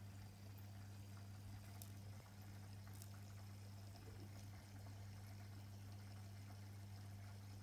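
Faint, steady low hum of an aquarium pump, with water trickling and bubbling in the tank.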